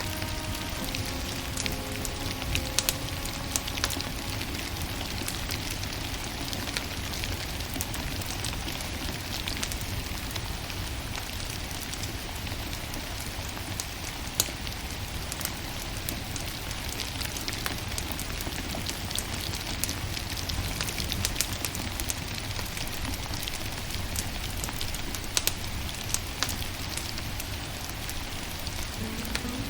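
Wood fire burning: scattered sharp crackles and pops over a steady hiss and low rumble.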